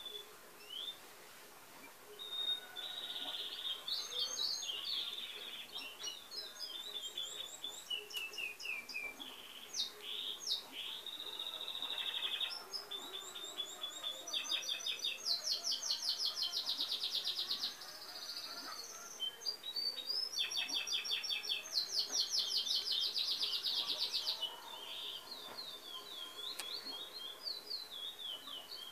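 Songbirds singing and calling: a mix of short chirps, buzzy notes and whistled phrases, with two long, fast, even trills in the second half.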